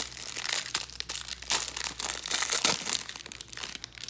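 Plastic trading-card pack wrapper crinkling and tearing as it is opened by hand, a dense irregular crackle that dies away near the end.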